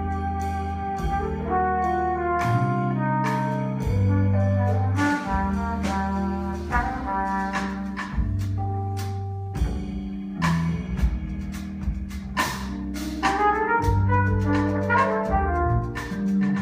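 Jazz-fusion band and full orchestra playing live: held brass chords that change every second or so over bass notes, with sharp percussion hits throughout.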